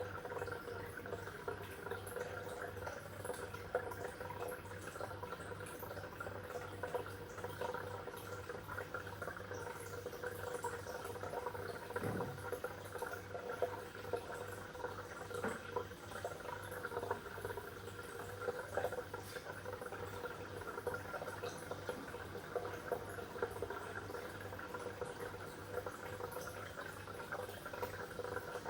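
Water bubbling and trickling continuously, with frequent small splashy pops over a steady low hum.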